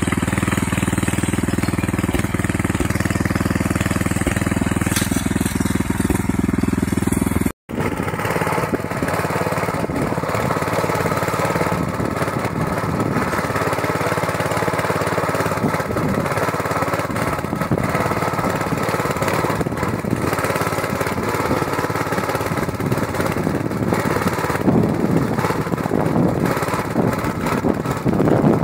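Walk-behind tractor's small petrol engine running steadily under load as it pulls metal weeding attachments through the soil. It cuts out for an instant about eight seconds in, then runs on with a rougher, more rattly sound as spiked rotary weeders churn the earth.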